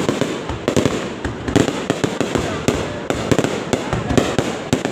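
Fireworks going off in a continuous barrage: an irregular stream of sharp bangs and crackles, several a second.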